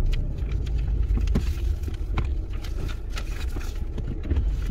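Car rolling slowly, heard from inside the cabin: a steady low engine and tyre rumble, with a few faint irregular clicks.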